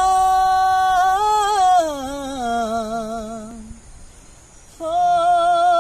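A single voice singing without accompaniment: it holds a long steady note, then slides down in pitch with a wavering vibrato and fades. A new held note starts near the end.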